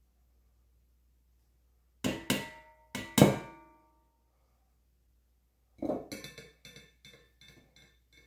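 Hard objects knocking with a short ringing tone: two pairs of sharp knocks about two and three seconds in, then from about six seconds a run of lighter taps, roughly three a second, that fade away.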